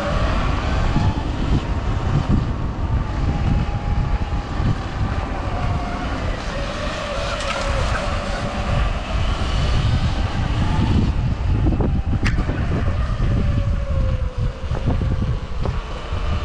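Sur-Ron electric dirt bike riding along a dirt trail: its electric motor whines, rising and falling in pitch as it speeds up and slows down. Heavy wind buffeting on the microphone is the loudest thing, with a single sharp click about three quarters of the way through.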